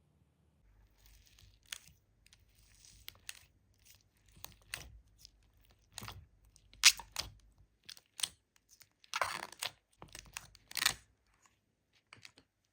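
Glitter slime being squished and pressed: irregular sharp clicks and crackling pops, with longer hissy squishes about nine and eleven seconds in. The loudest click comes about seven seconds in.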